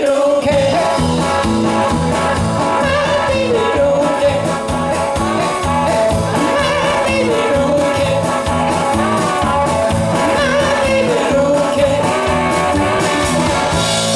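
Live rock band playing: electric guitar, bass guitar and drums with a singer, amplified in the hall.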